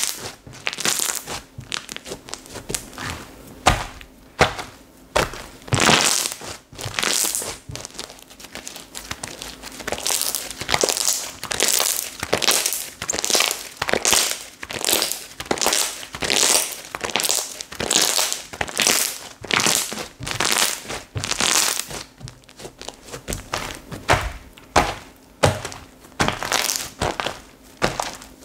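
Slime being squished and pressed by hand, making crackling, popping squelches in a steady rhythm of about one to two presses a second.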